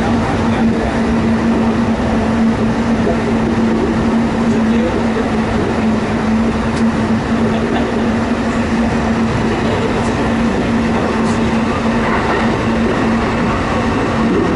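Interior running sound of a Kintetsu 9820-series electric train with Mitsubishi IGBT traction equipment, cruising at steady speed: a constant rumble of wheels on rail with a steady low hum.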